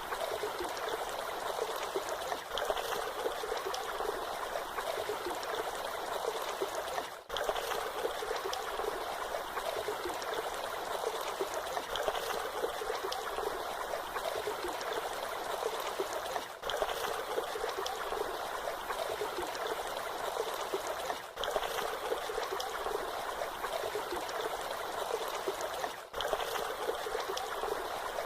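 Waterfall water splashing and rushing steadily, an even hiss with little deep rumble. The sound dips briefly four times.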